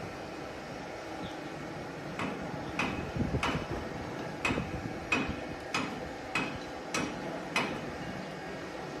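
Steady mechanical hum with a run of sharp, evenly spaced ticks, about one every 0.6 seconds, starting about two seconds in and stopping shortly before the end.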